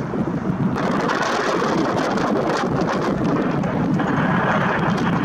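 Gusty wind buffeting the camera's built-in microphone: a loud, dense rumble and hiss with no clear tone. The upper hiss steps up abruptly about a second in.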